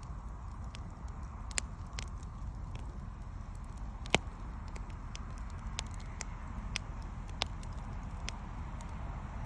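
Wood bonfire crackling: irregular sharp pops and snaps over a steady low rumble, with one louder pop about four seconds in.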